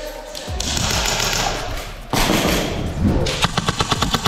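Airsoft guns firing on full auto: after a stretch of rushing, rustling noise, a fast, even string of sharp cracks starts about three seconds in and runs on.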